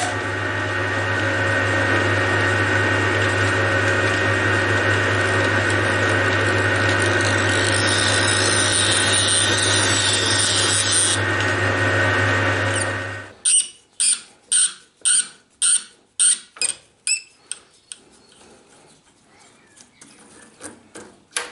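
Metal lathe running with a steady motor hum while a 6 mm die in a tailstock die holder cuts a thread on a small part, a higher hiss joining for a few seconds in the middle. The motor cuts off about 13 seconds in, followed by a run of sharp, evenly spaced clicks that fade away.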